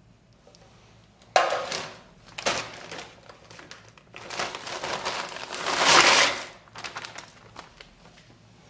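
Plastic bag of frozen pre-cut chicken pieces crinkling as it is handled, and the frozen pieces tumbling out of it into a slow-cooker crock, loudest about six seconds in. A sudden crackle about a second and a half in starts it off.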